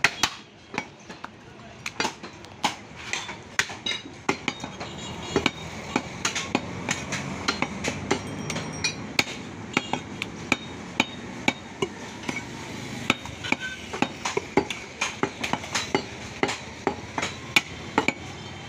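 Butcher's cleaver chopping beef on a wooden tree-trunk chopping block: a steady run of sharp, irregular chops, about two to three a second.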